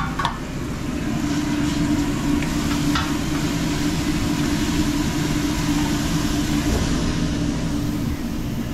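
A motor running steadily with a low, even hum under a broad hiss, with a couple of light knocks near the start and about three seconds in.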